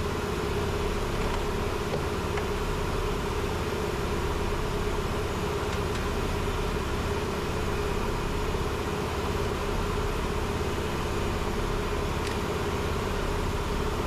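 Steady machine drone with a constant hum, the running noise of shop equipment such as fans, with a couple of faint clicks as the plastic door trim panel is handled.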